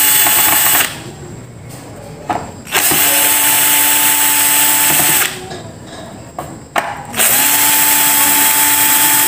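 Cordless drill-driver backing screws out of an inverter air-conditioner board's housing, running in three short bursts of a steady whine. The first burst stops about a second in, the next two each last about two seconds, and there are brief pauses with small clicks between them.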